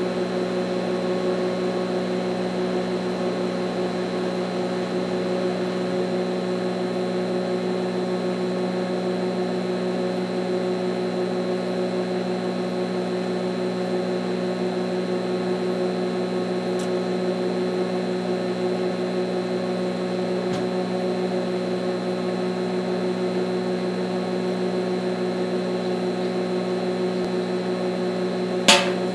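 Steady electrical hum of an arc welder overcharging a pair of spot-welded 18650 lithium-ion cells as they vent, with a single sharp pop near the end.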